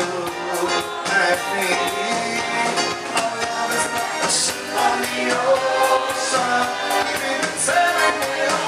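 Dance music with a singing voice over a steady drum beat.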